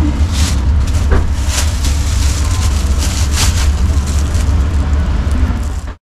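Clear plastic bag crinkling in short rustles as it is filled and tied, over a steady low rumble of street traffic; the sound cuts off abruptly near the end.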